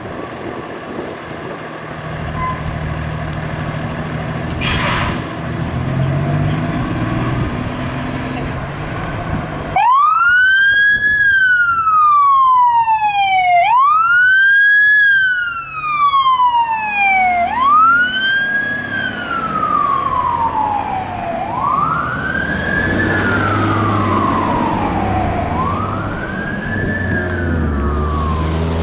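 Fire truck's engine running as it pulls out, with a brief burst of noise about five seconds in. About ten seconds in its siren starts wailing up and down in cycles of about four seconds, each a quick rise and a longer fall, growing fainter as the truck drives away.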